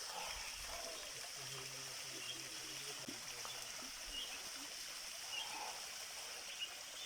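Small waterfall with low flow, its water trickling and splashing steadily and faintly, with faint short high chirps now and then.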